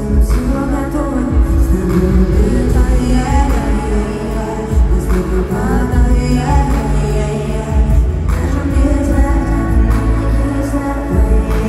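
Live pop song played loud through an arena sound system: a woman singing into a microphone over a heavy bass beat.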